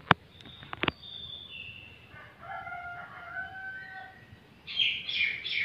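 Caged bekilus rooster crowing: a call from about two seconds in, then a louder, higher-pitched crow in three short pulses near the end. A sharp knock sounds just at the start, followed by two smaller clicks.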